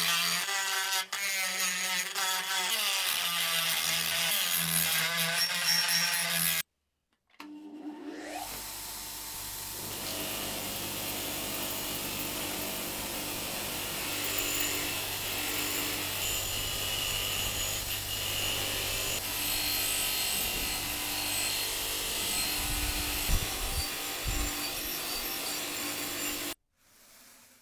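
Electric power tool running under load against a workpiece, in two takes with a hard cut between them. The second take spins up with a rising whine, then runs steadily with a hum and a gritty hiss before cutting off shortly before the end.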